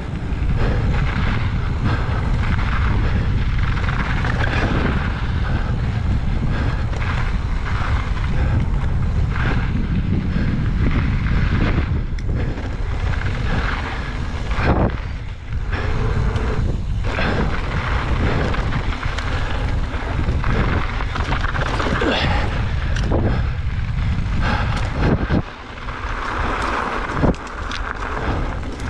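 Wind buffeting the microphone of a mountain bike's ride camera, over the hiss and crunch of tyres on loose dirt and gravel and occasional knocks and rattles from the bike. The noise drops briefly about three-quarters of the way through.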